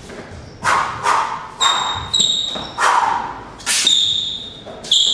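A combination of boxing punches landing, about seven sharp thuds in quick, uneven succession, several followed by a brief high metallic ring.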